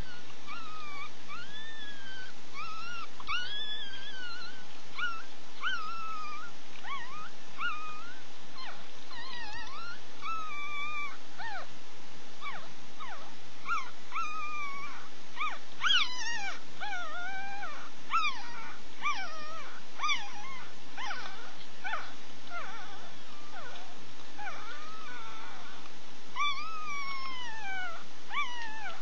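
Day-old Chihuahua puppies squeaking and whimpering: many short, high-pitched cries that rise and fall, scattered throughout over a steady hiss.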